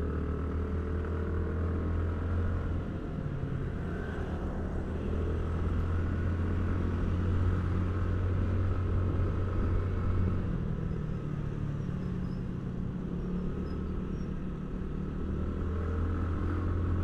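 Steady engine hum and road noise from a vehicle on the move.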